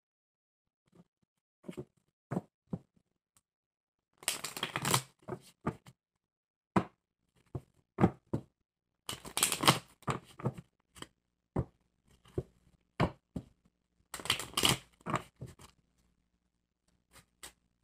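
A tarot deck being shuffled by hand: three bursts of rapid card-flicking, each about a second long and roughly five seconds apart, with single taps and clicks of the cards in between.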